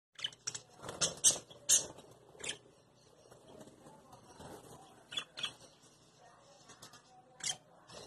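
Budgerigars chirping: short, sharp, high calls, several in the first two and a half seconds, a pair about five seconds in and one more near the end, with softer chatter between.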